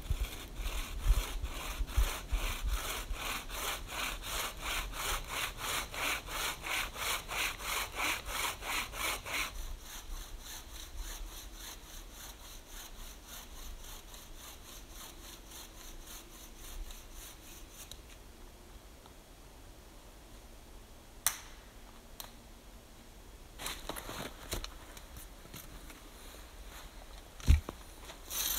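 Bow saw cutting through a log in quick, even back-and-forth strokes, loud for the first ten seconds, then fainter until about eighteen seconds in. After a quieter stretch there is a sharp click, and a low thump comes near the end.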